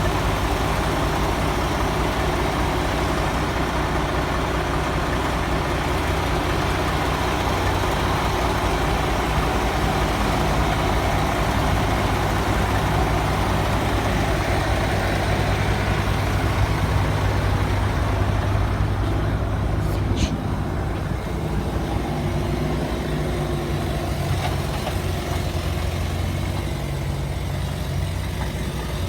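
Heavy truck engine running steadily under a heavy load, with a brief high squeak about twenty seconds in, after which the engine note eases slightly.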